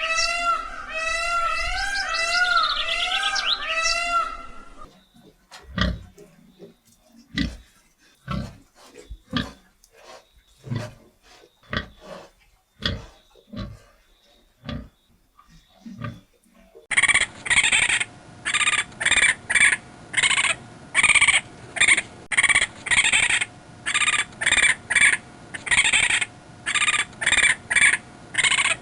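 A series of animal calls: a warbling call that rises and falls in pitch, then a string of short, low grunts with gaps between them, then from about two-thirds of the way in a fast run of short, high calls repeating about twice a second.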